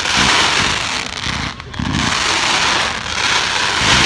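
Fireworks going off in a dense, continuous crackle, with a low thud about a second and a half in.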